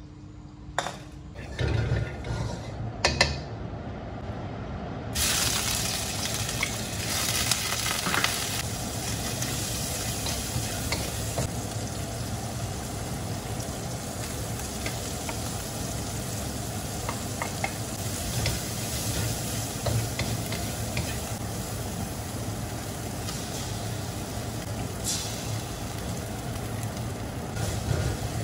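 Bacon and egg fried rice frying in a hot pan: a steady sizzle that starts suddenly about five seconds in, after a few knocks, with small utensil clicks as it is stirred.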